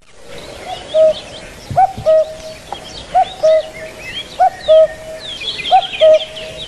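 Birds calling: one bird repeats a low two-note call, a short rising note then a held one, about every second and a quarter. Many quick, higher chirps and whistles from smaller birds run beneath it and grow busier near the end.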